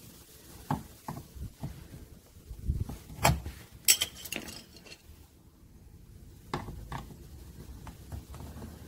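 Scattered sharp clicks and clinks of a metal screwdriver and hard plastic car-door trim being handled, with the loudest clatter of several knocks about three to four seconds in and two more clicks near seven seconds.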